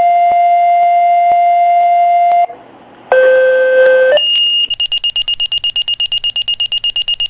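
Electronic tones: a long held tone, a short break, a shorter lower tone, then a high beep pulsing about eight times a second that cuts off suddenly at the end.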